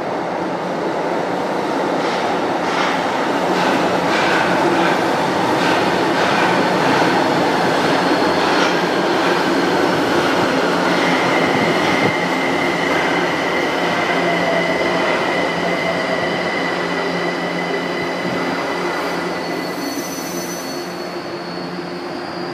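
São Paulo Metro Line 1 train running into an underground station and slowing. A quick series of wheel clicks over the rails comes first; from about halfway a steady high whine sets in, with a falling whine as the train slows.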